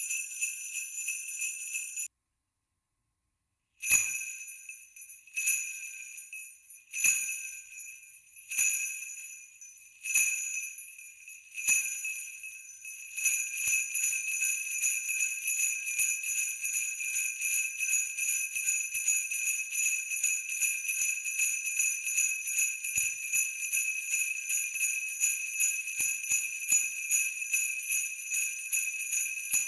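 Sleigh bells jingling continuously, then cutting off abruptly into dead silence about two seconds in. They come back as single shakes about every second and a half, each ringing out, then settle a little before halfway into steady rapid jingling.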